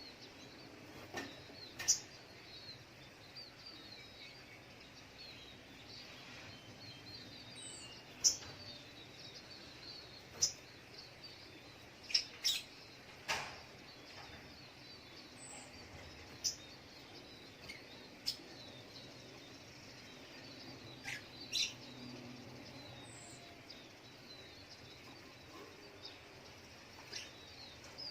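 Sogok ontong (little spiderhunter) giving short, sharp chirps, scattered irregularly every second or two, over faint, steady background noise.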